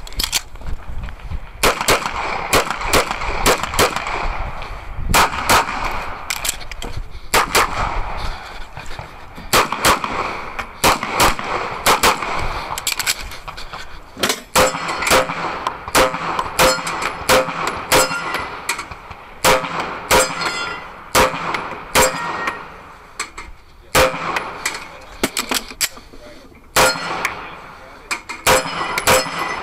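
A CZ Shadow pistol fired in quick strings of shots with short pauses, dozens of shots in all. Many shots hit steel targets, which ring with a clang just after the bang, most often in the second half.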